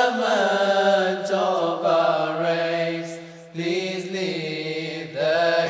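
Voices singing an English qasida, a devotional song for the Prophet Muhammad, in long drawn-out melodic phrases over a held lower note. The singing dips briefly about three and a half seconds in.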